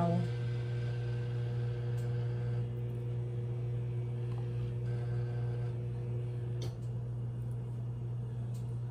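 Steady low hum of a running appliance or electrical hum in a kitchen, with faint higher tones that drop out partway through and a few soft ticks.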